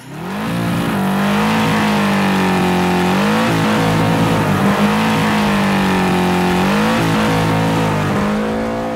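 Car engine held at high revs for a burnout, with tyres spinning on the pavement; the engine's pitch rises about three times, a second in, a little past three seconds and near seven seconds.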